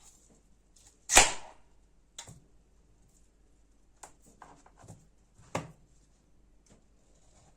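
Irregular knocks and clicks of kitchen food preparation: one sharp, loud knock about a second in, then half a dozen lighter knocks spread over the next few seconds.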